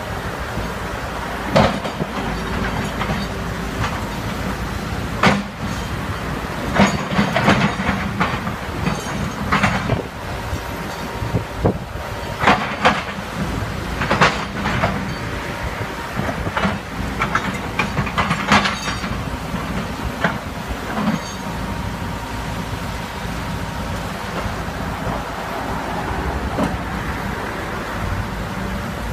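Hitachi Zaxis tracked excavator's diesel engine running steadily, with irregular clattering knocks and cracks as its bucket grabs and drags flood debris of branches, logs and stones. The river rushes underneath.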